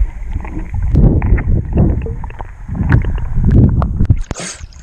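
Muffled underwater sound picked up by a freediver's camera: surging low rumbles of moving water with scattered clicks. About four seconds in the camera breaks the surface and the sound turns bright and airy, with water splashing and lapping at the surface.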